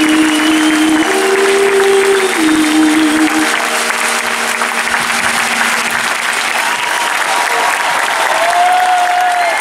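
Concert audience applauding. Over it in the first few seconds come long held musical notes that step up and back down, and near the end there is a short high tone.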